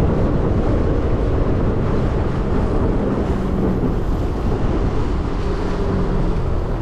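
Small boat running under power across choppy open water: steady wind buffeting the microphone over the rush of water along the hull and a low motor hum underneath.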